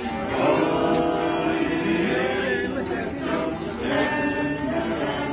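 A group of carollers singing a carol together, many voices sustaining the notes.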